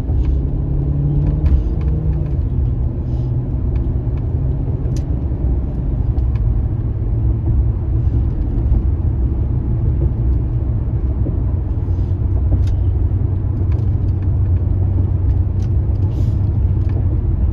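Car driving along, a steady low road-and-engine rumble.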